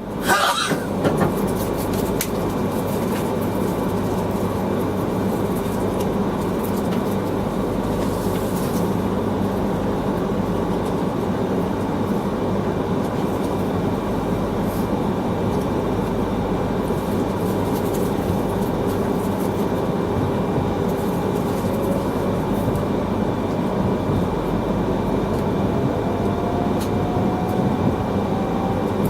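A man sneezes right at the start, over the steady running noise inside the cabin of an Akita Shinkansen Komachi train. Near the end a faint whine rises in pitch as the train picks up speed after departure.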